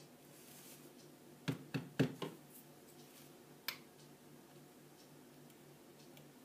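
A few sharp light knocks and clicks, four close together about a second and a half in and one more near four seconds, as the espresso portafilter and tamper are handled and set down on the counter before tamping. A faint low hum runs underneath.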